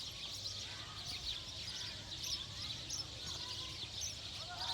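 Many small birds chirping and twittering at once in a dense, continuous chorus, with short arched calls from other birds now and then.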